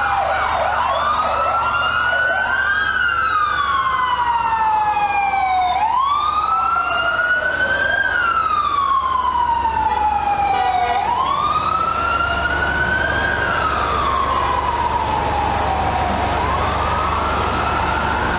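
Emergency vehicle sirens wailing: one siren's slow rise-and-fall sweep repeats about every five seconds, with other sirens overlapping it in the first few seconds, over a steady low hum.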